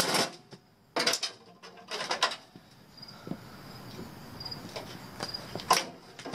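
Sheet-metal clanks and rattles as a furnace heat exchanger assembly is lifted, turned over and set down on concrete: a clatter at the start, a few more around one and two seconds in, and another near the end. Crickets chirp faintly behind.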